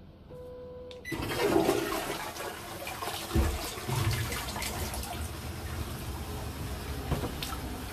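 Japanese electronic toilet flushing: a short steady beep from the wall control panel as the flush button is pressed. About a second in, a sudden loud rush of water swirls through the bowl and carries on.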